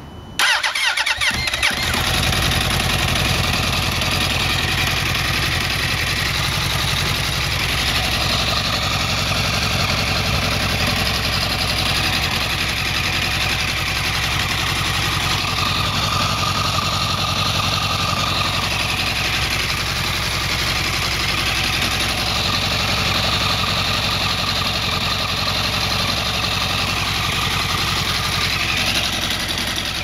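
2008 Yamaha R1's inline-four engine cranked by its starter on a cold start and catching within about two seconds, then idling steadily, with the motor ticking that the owner posted it for.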